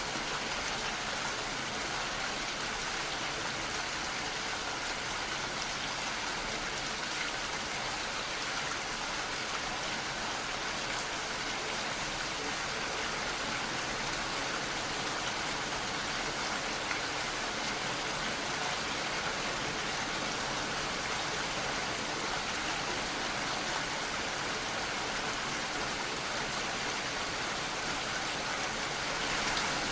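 Steady rain falling, an even hiss of many drops with no single distinct drips or thunder.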